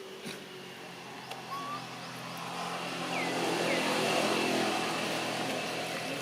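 A motor vehicle passing by, its engine growing louder to a peak about four seconds in and then fading. A few short chirping calls sound over it.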